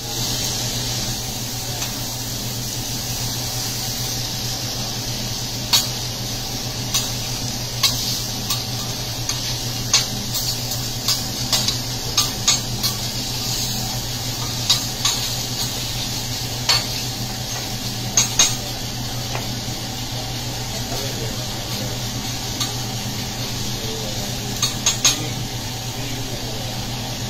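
Chicken sizzling on a hot teppanyaki griddle while metal cooking utensils scrape, chop and tap against the steel plate in sharp, irregular clacks, over a steady low hum.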